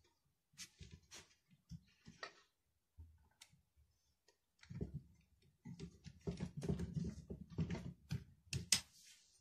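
Faint clicks and scraping of a 5 mm hex key turning the axle screw of a kids' scooter wheel as it is tightened. The clicks are sparse at first, then come in a busier run of clicking and rattling over the second half.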